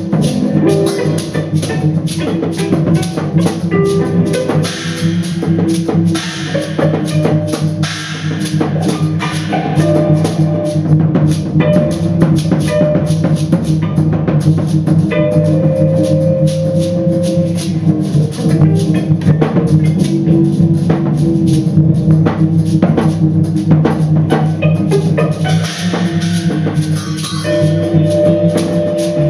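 Live music: a drum kit played in many rapid, busy strikes over sustained low drones and long held higher notes.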